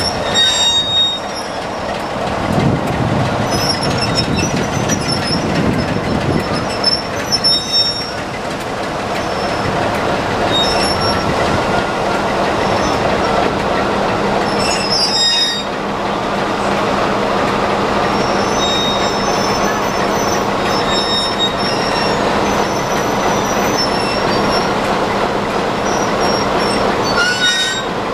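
BR 'Peak'-type mainline diesel locomotive running at low power as it creeps up to a rake of coaches, its engine humming steadily, with thin high-pitched wheel squeals on and off from the rails.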